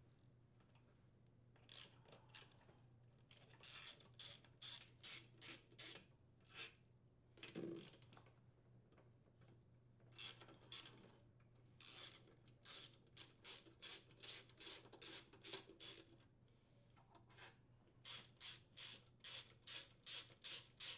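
Faint runs of quick clicking, about two or three a second, from a ratcheting socket driver as the cylinder-head screws of a Briggs & Stratton small engine are unthreaded. One duller knock comes about a third of the way in.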